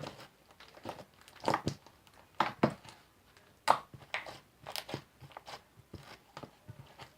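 Soap-and-glue slime being kneaded and squeezed by hand, crackling and popping irregularly with the air trapped in it.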